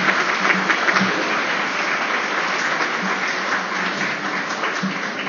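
Audience applauding, the clapping easing a little toward the end.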